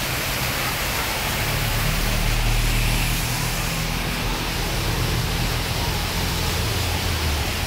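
Heavy water gushing down a wall and splashing into floodwater, a loud, steady rush. Underneath, a vehicle engine runs with a low rumble that fades out near the end.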